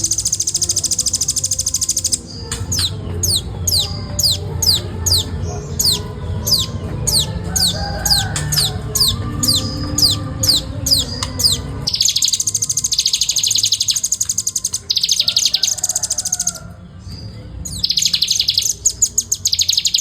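Velvet-fronted nuthatch singing: fast, dense, high-pitched trills, broken for about ten seconds near the start by a run of separate down-slurred notes, about two a second.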